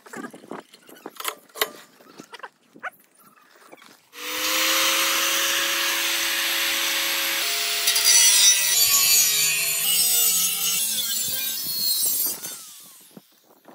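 A power tool cutting into wood, starting about four seconds in and running for about eight seconds. It is a continuous rasp with a steady hum whose pitch shifts a few times, and it fades out near the end. Scattered clicks and knocks come before it.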